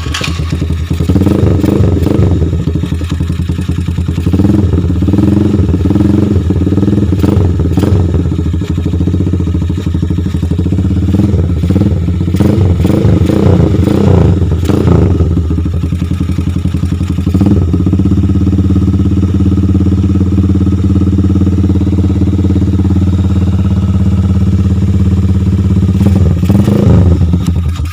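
Gamma 200 motorcycle engine running through an SC Project muffler with its silencer insert removed: just started, blipped repeatedly for the first half, then a steady idle, with one more rev near the end.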